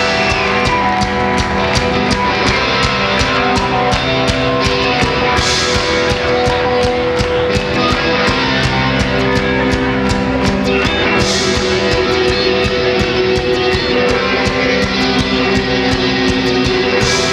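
Rock band playing live: electric guitars holding sustained notes over a steady drum beat, loud and full, with no singing.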